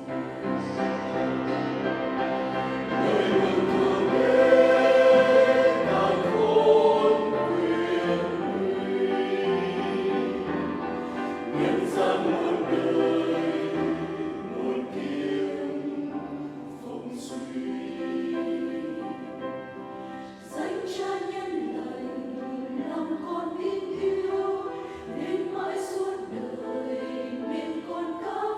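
Choir singing a Vietnamese Catholic hymn in sustained harmony.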